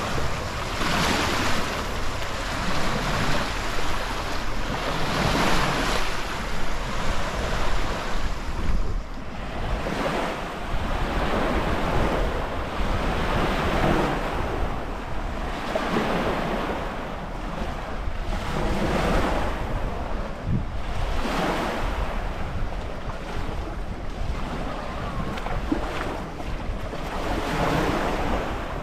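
Sea waves breaking and washing up the shore, swelling and fading every few seconds, with wind rumbling on the microphone underneath.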